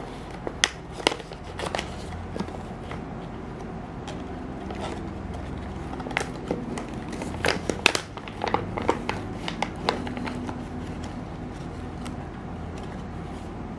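Crinkling and crackling of a foil-lined blind-box packaging bag as it is torn open and rummaged through. The sharp crackles come loudest about a second in and again around seven to eight seconds, and thin out near the end.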